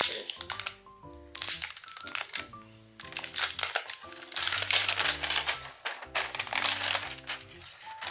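Thin plastic protective film crinkling in bursts as it is peeled and handled off a new smartphone, over background music with steady held notes.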